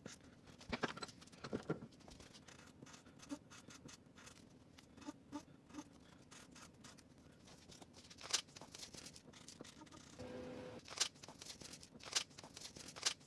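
Fine-grit sandpaper wrapped around a small sanding stick, rubbed by hand along the chamfered edge of a knife handle scale: faint, quick back-and-forth rasping strokes, with a few sharper, louder scrapes in the second half.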